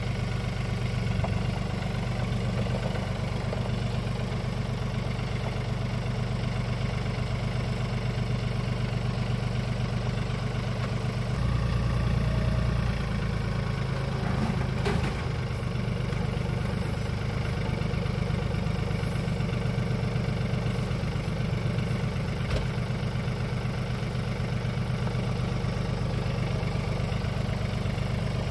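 RK 37 compact tractor's engine running steadily as its front loader moves implements, the low hum briefly louder about twelve seconds in.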